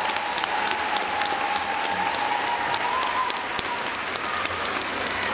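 Audience in an ice rink applauding steadily after a skater is announced, a dense patter of clapping. A faint steady high tone runs beneath it.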